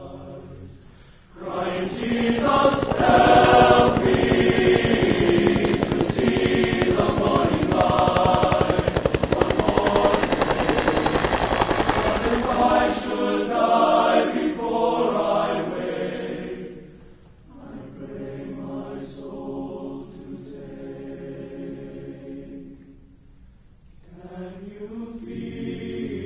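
Choral chant music: voices holding long, layered chords. The music swells loud about a second and a half in, eases off after about a quarter of a minute, and is quieter through the later part.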